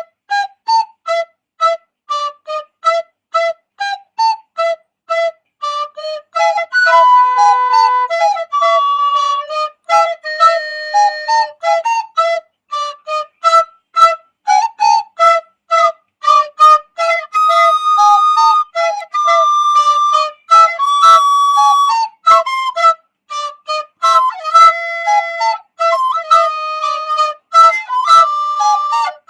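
Instrumental music: a flute-like melody played mostly in short, detached notes at about two to three a second, with a few longer held notes.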